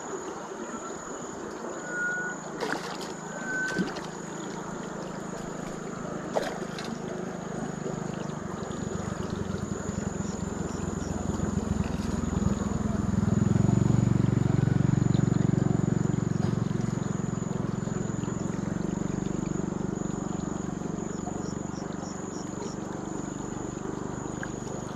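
River water flowing steadily past the bank. A low motor drone builds from about a third of the way in, is loudest around the middle, then slowly fades, like a boat engine passing on the river.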